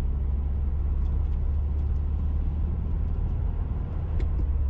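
Steady low road and engine rumble heard from inside the cabin of a Subaru WRX cruising at about 40 mph, with a few faint ticks from small rattles, the clearest about four seconds in.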